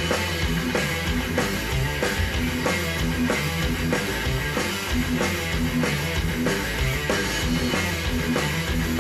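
Guitar-and-drums music with a steady beat, played through JVC EX-P1 WoodCone speakers and picked up in the room.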